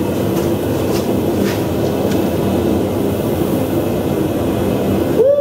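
Forge running with a steady, loud roar as a red-hot 4140 steel block is plunged into a tub of super-quench brine. No separate sizzle of the quench stands out above it.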